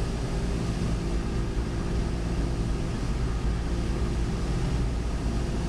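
Cessna 172's piston engine and propeller running steadily in flight, held at part power.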